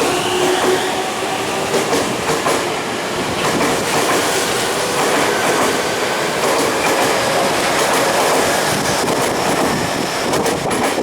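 Tobu 50000 series electric train pulling out past the platform, its motor whine rising for the first half second. After that come steady wheel-on-rail rolling noise and clicks as the wheels cross rail joints, with the clicks coming thickest near the end.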